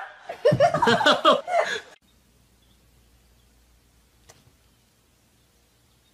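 A dog yelping and barking in a rapid run of short calls that cuts off about two seconds in, followed by near silence with one faint click.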